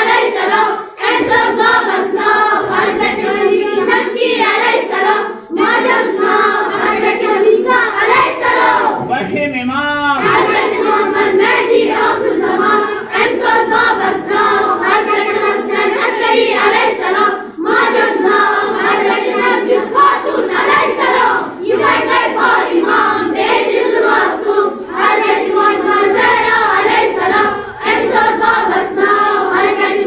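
A group of children's voices reciting in chorus in a sing-song chant, the names of the twelve Shia Imams, with a few short pauses between lines.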